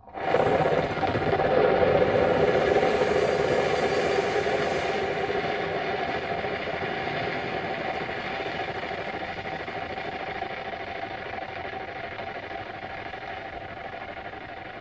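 Dry-chemical fire extinguisher being emptied through its hose into a cloth-covered bin: a loud rushing hiss that starts suddenly and slowly fades as the pressure runs down.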